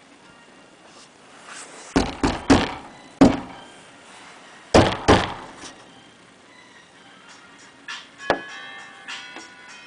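A run of sharp, hollow thuds: four in quick succession around two to three seconds in, two more about five seconds in, and one last knock near the end.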